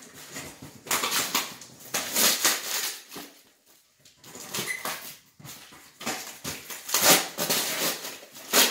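Cardboard boxes and packing being handled and rustled in irregular bursts as parts are unpacked by hand, with the loudest bursts near the end.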